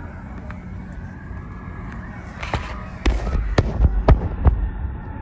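A softer crackle about two and a half seconds in, then five sharp bangs in about a second and a half, with a low rumble under them.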